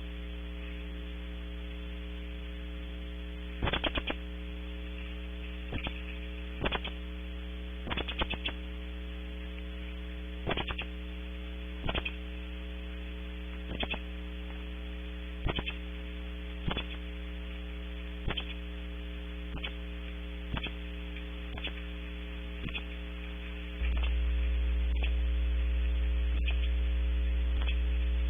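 Steady electrical mains hum on a wildlife nest-cam's audio feed, broken every second or two by short crackling clicks, some in quick little runs; about 24 seconds in the low hum steps up louder. It is taken for a fault in the camera's sound.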